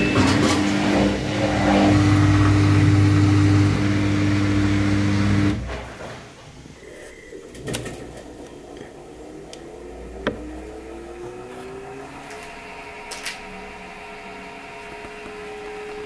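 Samsung WW90K5410UX front-loading washing machine running its calibration cycle with the drum empty. A loud steady hum lasts about the first five seconds. Then the drum turns, with the inverter motor whining, rising in pitch and then holding steady, and a few light clicks.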